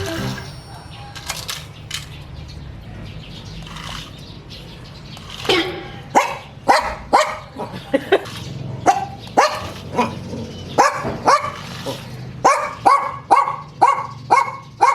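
Beagle barking repeatedly, about two barks a second, starting about five and a half seconds in after a quieter stretch.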